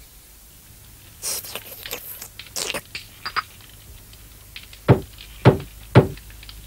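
Three knocks on a door, about half a second apart, near the end, after a few lighter scuffing sounds.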